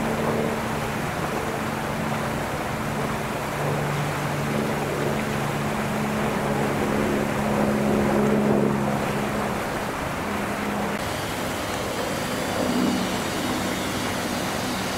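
A steady mechanical drone of a few held low tones over a wash of noise, with the tones dropping out about eleven seconds in.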